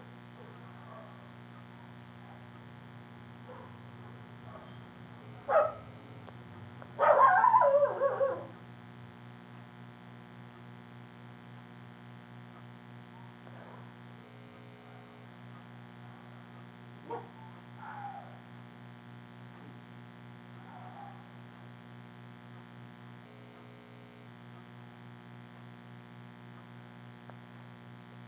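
Electric fan running with a steady low hum. About five seconds in there is a short sharp cry, and a louder wavering cry follows for about a second and a half.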